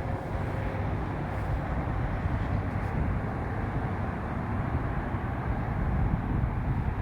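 Wind buffeting the microphone outdoors: a steady, gusting low rumble with no distinct events.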